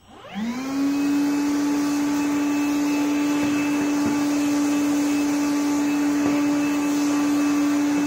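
Makita DVC750LZ 18V cordless vacuum running as a blower, with its hose on the exhaust outlet. The motor spins up with a rising whine just after the start, then runs at a steady high pitch with air rushing through it.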